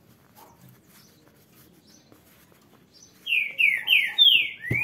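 A bird chirping: about three seconds in, a quick run of five short, high chirps, each falling in pitch. A light knock comes near the end.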